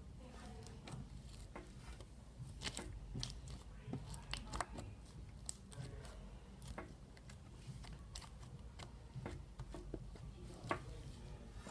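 Sticky black slime being worked by hand, making irregular small clicks and snaps as it is squished and pulled apart.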